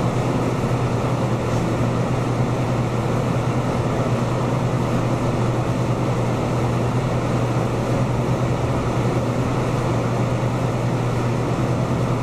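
Steady low machine hum with a constant rushing noise, unchanging throughout.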